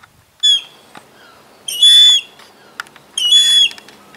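Juvenile gull calling: three high, whistled calls, a short one, then a longer and louder one about two seconds in, then a third near the end.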